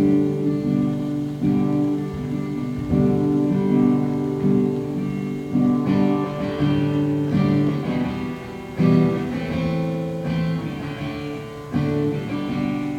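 Instrumental music: acoustic guitar strumming and picking chords, with no singing.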